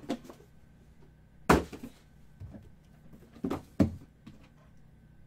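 Cardboard trading-card boxes and packs being handled and set down on a table: a series of sharp knocks and thumps, the loudest about a second and a half in and another close pair a couple of seconds later.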